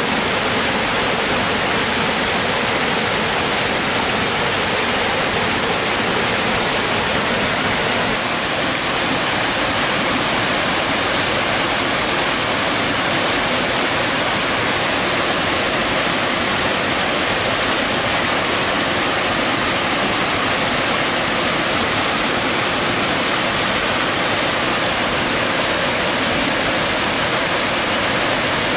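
Small waterfall on a rocky mountain stream, its water rushing and splashing in a steady, loud hiss.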